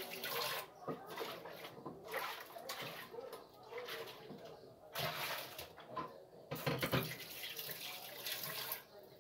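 Supermarket background noise: a steady hiss with indistinct distant voices, and a couple of louder bumps or handling noises in the middle.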